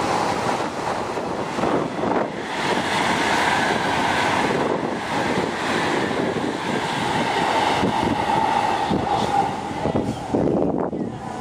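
Taiwan High Speed Rail 700T high-speed trains passing at speed: a steady rushing noise, with wind buffeting the microphone. The sound breaks off briefly near the end.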